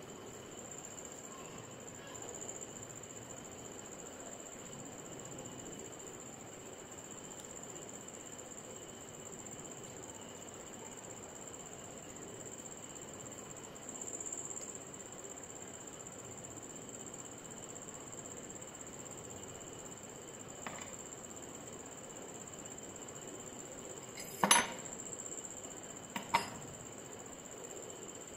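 Two sharp metal clinks about two seconds apart near the end, as steel parts of a rusty hand-operated animal hair clipper, its blades and nuts, are handled and set down on a wooden bench. Quiet handling noise comes before them, over a steady faint high-pitched whine.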